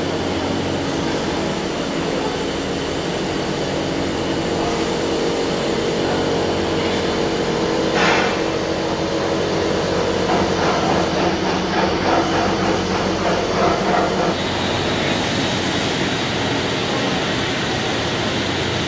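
Steady running hum of a Mori Seiki NHX 8000 horizontal machining centre, with a short knock about eight seconds in and a stretch of irregular light knocking a little later.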